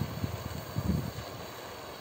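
Gusty wind buffeting the microphone: an uneven low rumble that swells and fades.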